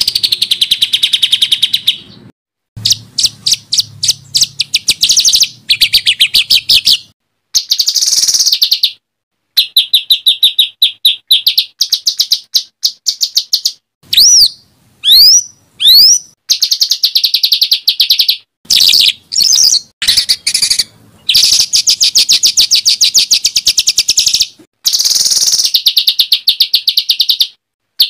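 Songbird song recorded for tutoring competition birds: phrase after phrase of rapid, harsh, chattering trills (tembakan), broken by brief gaps. Midway comes a short run of three or four loud whistled notes that sweep steeply up or down in pitch.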